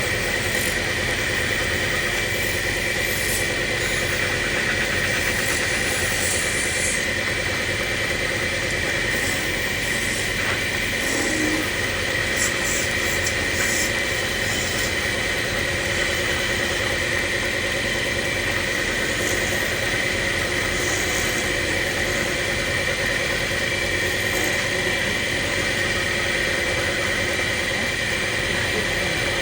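Woodturning lathe running steadily, an even motor hum with a strong steady whine and a few brief, faint hissing scrapes in between.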